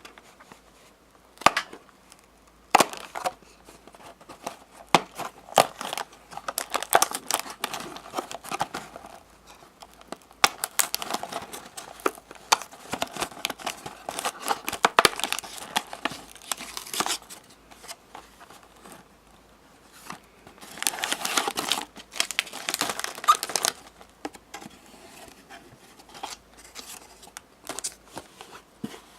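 Crinkly snack packaging being handled and torn open. Sharp crackles and rustles come in irregular bursts, with the longest runs in the middle and near the end.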